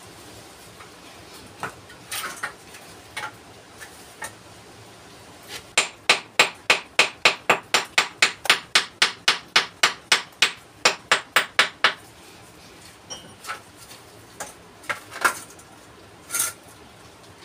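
Hammer striking a flat stone, with a steady run of sharp blows at about three to four a second through the middle, and scattered knocks of stones being handled and set before and after. This is stone being dressed to fit a dry-stone washbasin base.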